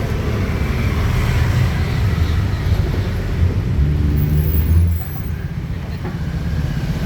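Motor vehicle engine and road traffic noise, a loud low rumble that eases off about five seconds in.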